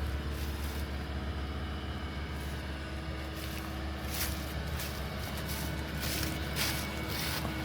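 Excavator's diesel engine running steadily with a low hum, with a few short clanks or scrapes about four seconds in and again near the end.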